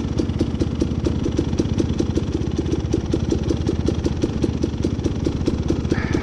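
Dirt bike engine idling close by, a steady, rapid putter that neither revs up nor dies down.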